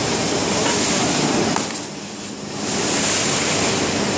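Paper mill machinery at a kraft-paper rewinder running with a steady rushing noise that eases for about a second near the middle, then comes back up.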